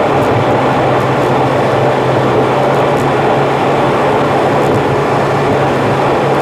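Steady car road noise, tyres and engine at highway cruising speed, played back at about three times speed so it sounds raised in pitch, with a steady low hum.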